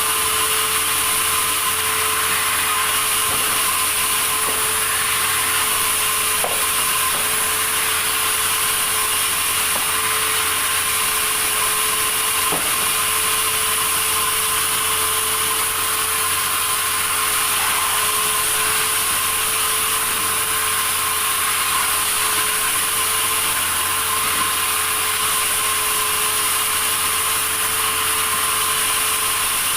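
Sawmill saw running steadily through wood: an even, unbroken machine noise with one constant tone, no change in pitch or load.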